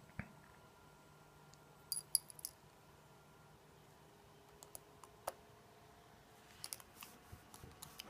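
Faint scattered small clicks and taps of a precision screwdriver and tiny screws against the plastic frame of a Samsung Galaxy S4 being screwed back together. There is a quick cluster about two seconds in, with single clicks later on.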